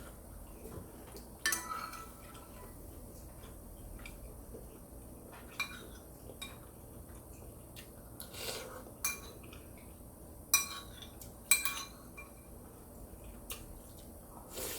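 Eating utensils clinking against a dish during a meal: a handful of separate sharp clinks, the loudest in the second half.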